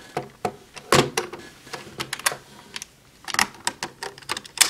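Hard plastic clicks and clacks of a DX Kamen Rider toy buckle being handled and snapped into place on the belt: a run of sharp, separate clicks, with a quick cluster past the middle and a loud click near the end.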